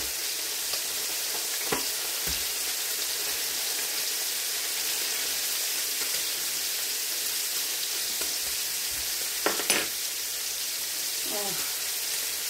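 Meat sizzling and frying in two pans, a steady hiss, with a few light knocks, the loudest about ten seconds in.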